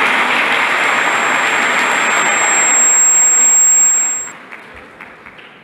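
Audience applauding, with a steady high-pitched whine over the clapping that grows louder; both cut off suddenly about four seconds in.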